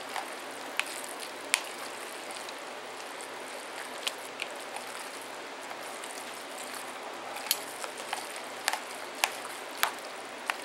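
A spoon stirring and mashing egg salad in a glass bowl: a soft steady scraping and squishing, with sharp clinks of the spoon against the glass, several of them bunched near the end.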